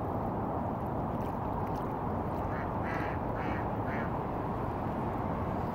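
A duck quacking four times in quick succession over a steady low background noise.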